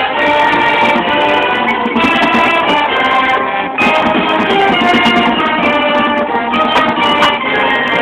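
High school marching band playing its field show: held wind chords that shift from one to the next, with a short break in the sound about four seconds in. Everything above about 4 kHz is cut off by the phone's recording.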